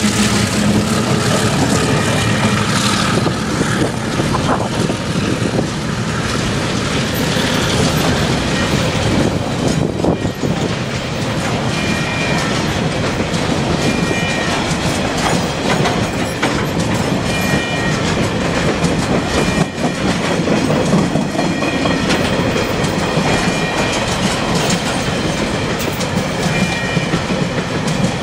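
A diesel-hauled container freight train passing close by. A locomotive's engine is heard briefly at first, then the wagons roll past with a steady rumble and clickety-clack of wheels over the rail joints. A faint high tone comes and goes through the second half.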